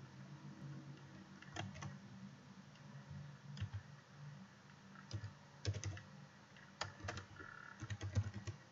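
Keystrokes on a computer keyboard. Scattered single key clicks come first, then quicker runs of keys from about five seconds in.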